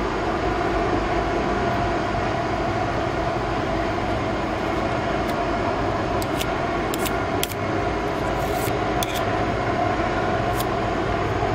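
Steady machinery drone with several held pitches and a low rumble underneath, with a few faint clicks in the second half.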